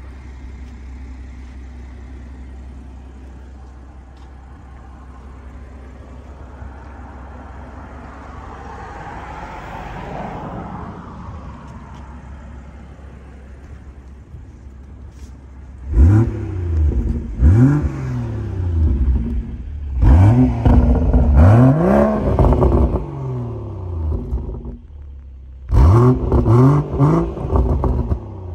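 BMW M140i's 3.0-litre turbocharged straight-six idling steadily through an M Performance exhaust, then revved in a series of sharp blips, each rising and falling quickly, over the second half, with one longer rev held for a couple of seconds in the middle.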